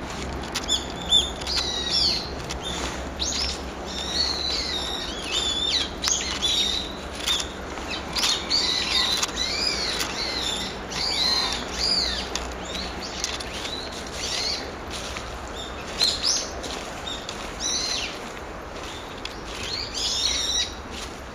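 Brown-eared bulbul calling: shrill, high notes that arch up and down in pitch, given in bouts of several quick calls with short gaps between them.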